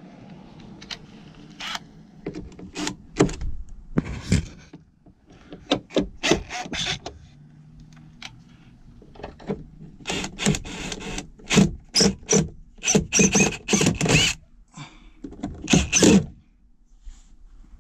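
Cordless drill-driver driving screws in many short bursts of whirring, more and faster from about halfway through, with sharp clicks and knocks in between.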